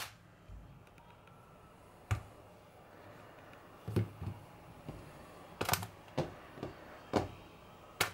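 Groceries set down one at a time on a granite countertop, a bag of rice, a banana, a mandarin, a pepper and a carrot, each giving a short knock or tap, about eight in all at uneven intervals, with quiet room tone between.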